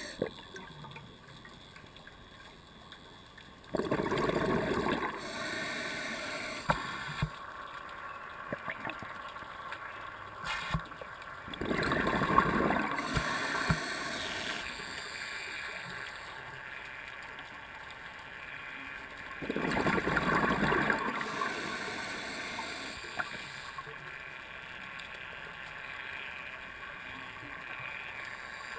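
Scuba regulator breathing heard underwater: a rush of bubbling exhaust from the diver's exhalation comes three times, about every eight seconds, over a quieter underwater hiss, with a few faint clicks in between.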